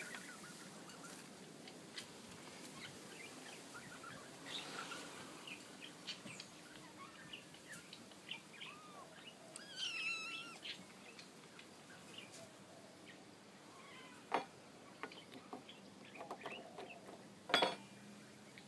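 Quiet outdoor ambience with scattered chirps and calls from birds, including one louder warbling call about halfway through. A couple of sharp taps stand out, the louder one near the end.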